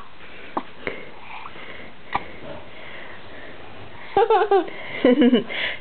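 Quiet room background with a few faint clicks, then, about four seconds in, two short high-pitched vocal sounds whose pitch bends up and down, followed by a brief breath.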